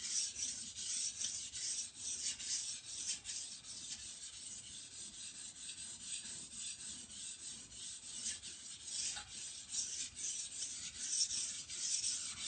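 Steel knife blade rubbing back and forth on a wet 400-grit water stone, a rasping scrape of quick repeated strokes under heavy, burr-forming pressure. The stroking eases off in the middle and grows stronger again near the end.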